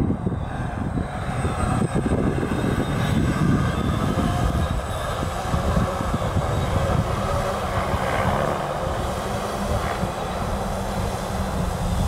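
SONGBIRD VTOL drone flying past, its propellers giving a steady drone over a noisy rumble. About halfway through, a low steady hum comes in and grows stronger towards the end.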